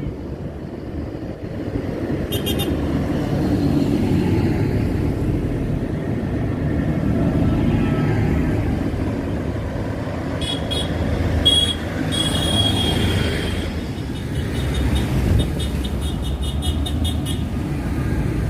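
Procession of farm tractors driving past one after another, their diesel engines making a steady low rumble. A few short high-pitched sounds ring out over the engines, one about two seconds in, several around the middle, and a run of quick even ticks near the end.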